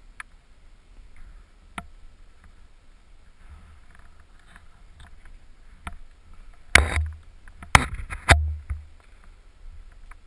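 Knocks and scuffs of a climber's hands and shoes on an indoor climbing wall and its holds, picked up by a helmet camera: a few light clicks, then three loud thumps in quick succession in the second half.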